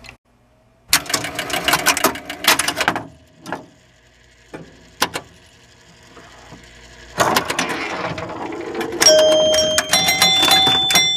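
Pinball machine in play: quick clicks and clattering of the ball and playfield mechanisms in stretches, then from about nine seconds a run of repeated bell-like scoring tones over the clatter.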